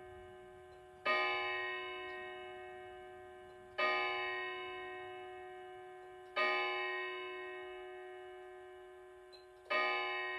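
Antique Tempus Fugit grandmother clock's Kienzle movement striking the hour, one slow stroke at a time. Four strokes about three seconds apart each ring on with many tones and fade slowly until the next.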